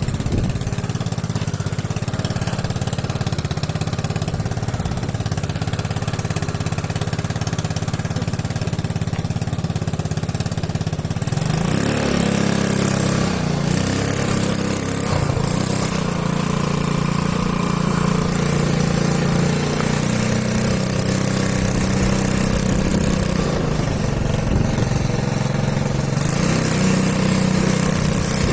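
Small motorcycle engine idling steadily. About twelve seconds in, its note starts to change and rushing wind noise comes in as the bike rides off.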